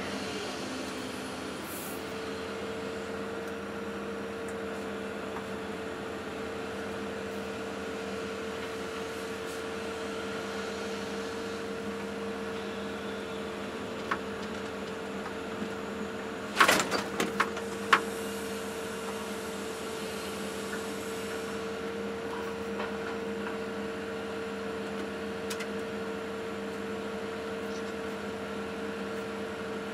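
Hydraulic excavator's diesel engine and hydraulics running steadily, heard inside the cab as a constant hum with a steady higher tone. A little past halfway comes a brief cluster of sharp knocks and clicks.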